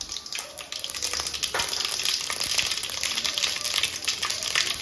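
Mustard seeds and urad dal frying in hot oil, a steady sizzle with many small crackles and pops as the seeds temper.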